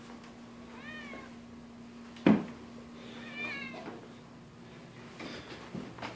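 A domestic cat meows twice, short calls that rise and fall in pitch, with a single sharp knock between them about two seconds in.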